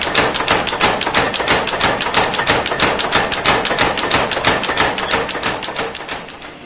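Rapid, evenly spaced hammer blows on iron being forged, about five or six strikes a second, dying away near the end.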